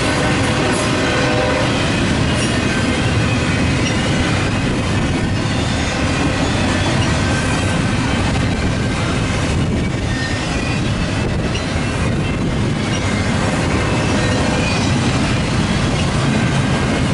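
Double-stack intermodal train's well cars rolling past: a loud, steady rumble and rattle of steel wheels on the rails, with brief faint wheel squeals now and then.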